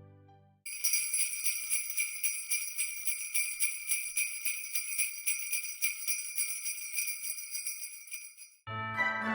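Jingle bells shaken in a steady rhythm, about four shakes a second, starting suddenly and cutting off near the end as music begins.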